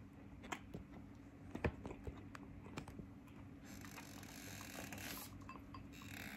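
Quiet eating sounds: wooden chopsticks clicking against a porcelain rice bowl several times, with one sharper knock about one and a half seconds in, then soft breathing and chewing noise in the second half over a low steady hum.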